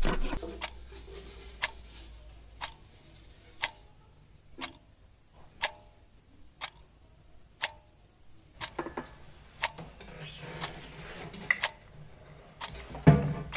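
A clock ticking steadily, one sharp tick a second. A louder low knock comes near the end.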